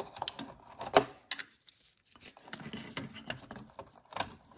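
Irregular clicks and light rubbing of stiff electrical wires being handled in a wall switch box, with a sharp click about a second in and another near the end.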